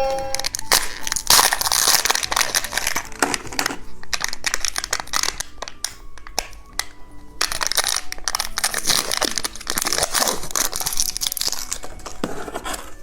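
Crinkly plastic wrapper of a toy-filled cookie egg being torn open and crumpled by hand: a dense run of crackling and rustling with many sharp crinkles.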